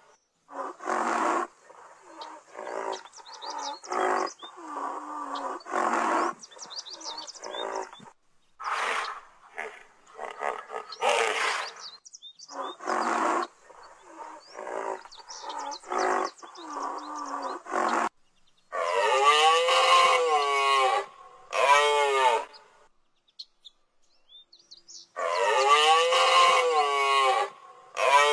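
A series of animal calls: many short calls separated by brief gaps, then, from about 18 seconds in, longer calls of about two seconds each whose pitch rises and falls.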